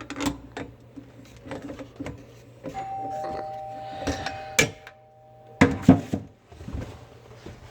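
Metal clicks and knocks of sink drain fittings being handled and tightened, with a steady two-note ringing tone for about three seconds in the middle that stops at a loud knock.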